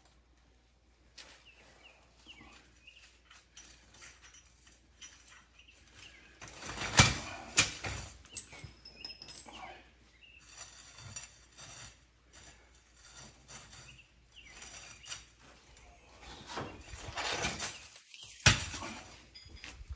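Scattered knocks and clinks of metal parts being handled, with a sharper knock about seven seconds in and another near the end.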